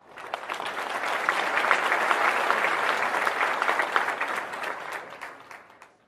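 Crowd applause: many hands clapping densely, swelling up over the first second and fading out over the last second or so.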